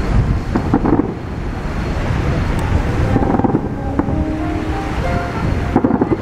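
Aerial fireworks shells bursting one after another, heard from a distance as a continuous rolling rumble, with sharper bangs about a second in and near the end. Wind buffets the microphone.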